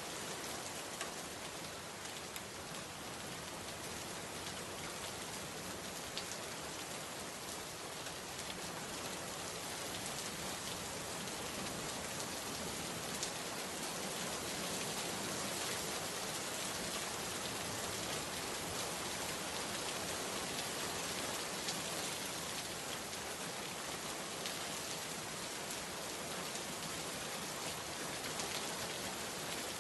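Steady rain falling, a continuous hiss with many small drops tapping on surfaces.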